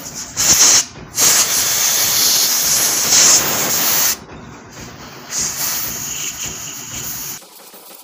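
Compressed-air blow gun hissing in blasts as it blows out a motorcycle throttle body's combined MAP/TPS sensor: a short blast, a long blast of about three seconds, then a softer one.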